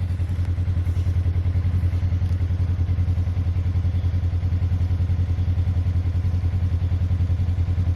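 Side-by-side UTV engine running steadily with a low hum and a fast, even pulse.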